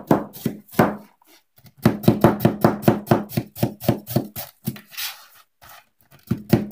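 Head of cabbage being shredded by hand in quick, even strokes, about five a second, with two short pauses.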